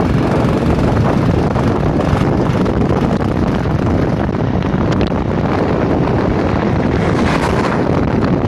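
Steady wind buffeting the microphone on a moving motorcycle, mixed with the bike's running noise.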